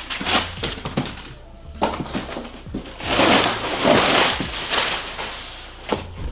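Cardboard box and its packing being torn open and unpacked: dense rustling, crinkling and tearing with many sharp crackles and clicks, loudest in a burst a little past the middle.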